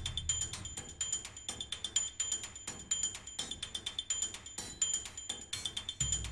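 Background music: a quiet, quick ticking percussion pattern with a recurring high tone, and a low bass coming in near the end.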